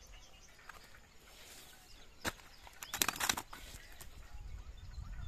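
A single sharp knock, then a quick flurry of sharp clattering or flapping strokes, over a low steady rumble.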